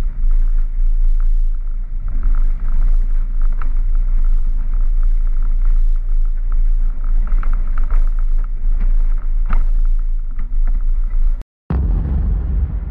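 Road rumble and wind buffeting picked up by a hood-mounted camera on a vehicle driving a rough gravel track, with frequent knocks and clatters from stones and bumps. The sound cuts off abruptly near the end, and a short low rumbling sound effect of the GoPro logo sting follows, fading out.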